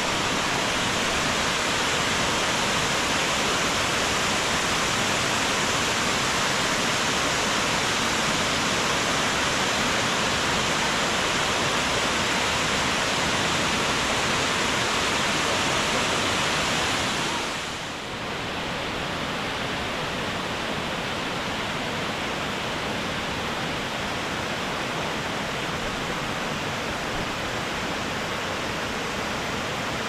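Waterfall: many streams falling down a rock face into a river below, a steady rushing hiss. A little over halfway through it turns slightly softer and duller.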